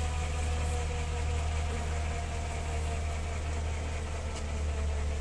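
Helicopter engine running steadily on the ground: a constant low drone with a few steady whining tones over it, unchanging throughout.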